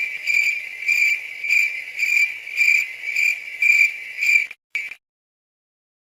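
Crickets chirping, a steady high trill swelling about twice a second, which stops about four and a half seconds in; the classic awkward-silence sound effect.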